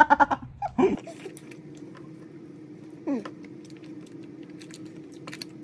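A man's laughter trailing off in short pulses during the first second. Then faint clicks of eating utensils and food handling over a steady low hum, with one short falling tone about three seconds in.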